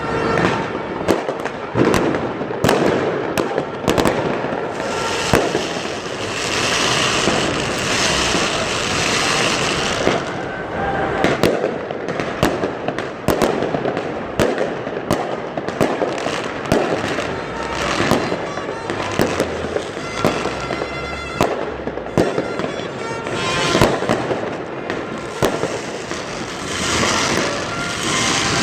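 New Year fireworks going off continuously: many sharp bangs in irregular rapid succession, with a dense spell of crackling about a quarter of the way in.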